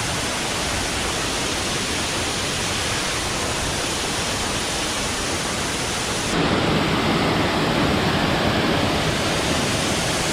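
Waterfall's falling water: a steady rush that about six seconds in suddenly becomes louder and heavier.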